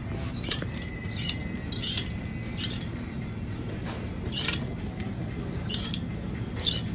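Clothes hangers clicking and scraping against a clothing-rack rail as garments are pushed aside one by one: a series of about eight sharp, irregularly spaced clinks.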